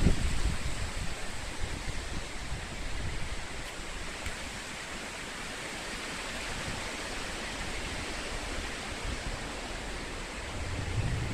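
Gale-force wind rushing through forest trees as a steady hiss, with gusts buffeting the microphone in the first couple of seconds, a calmer stretch in the middle, and the buffeting picking up again near the end.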